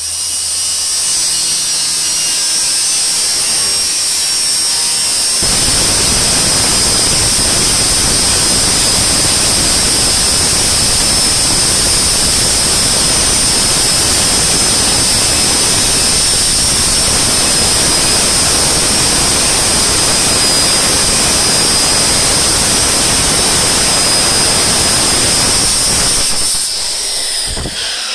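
Corded circular saw with a Diablo metal-cutting blade cutting through stainless steel sheet. It whines at full speed for about five seconds, then bites into the steel with a loud, harsh, steady cutting noise lasting about twenty seconds, and winds down near the end.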